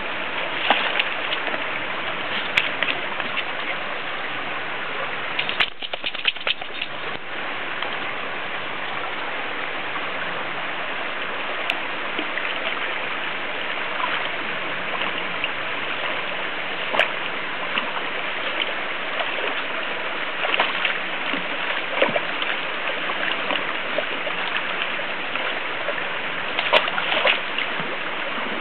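Stream water running steadily, with splashes now and then from a dog pawing in the water, a cluster of them about six seconds in and more near the end.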